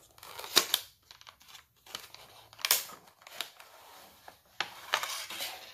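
A cardboard retail box and its clear plastic blister tray being opened and slid apart by hand: irregular crinkling and rustling, with sharp crackles now and then.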